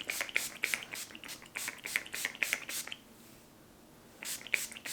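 Quick crackling and rustling of hands and a brush working through dry natural hair close to the microphone, in two spells with about a second of near silence between them.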